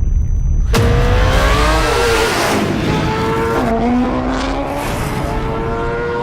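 High-revving sport motorcycle engine at speed, holding a steady pitch, then dropping sharply about four seconds in as the revs fall, and climbing again.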